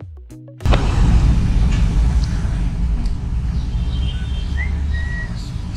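Music cuts off under a second in, giving way to a steady low rumble of vehicle engines and road traffic, with a few faint short chirps above it.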